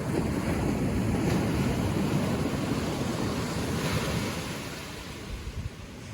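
Ocean surf washing onto the beach, with wind buffeting the microphone. The rush eases off near the end.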